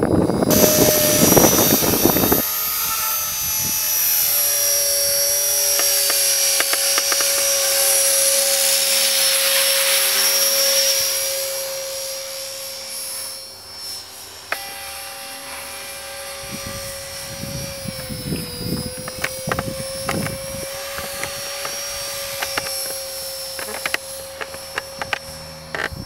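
Esky Belt CP X electric RC helicopter in flight: a steady hum of motor and rotors with a high whine above it. The pitch dips briefly about two-thirds of the way through, and the sound fades after the first dozen seconds. Wind buffets the microphone at the start and again in gusts in the later part.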